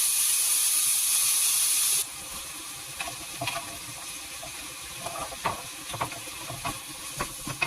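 Food sizzling in a frying pan, a loud steady hiss that cuts off suddenly about two seconds in. After that come scattered light clinks and taps of a utensil against the pan.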